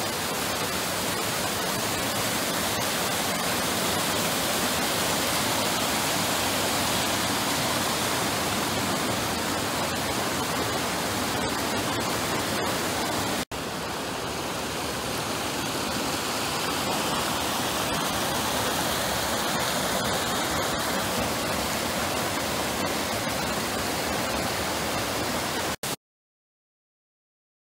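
Mountain creek water rushing over rocks, a steady even rush. It breaks off for an instant about halfway through and picks up again, then stops dead a second or two before the end.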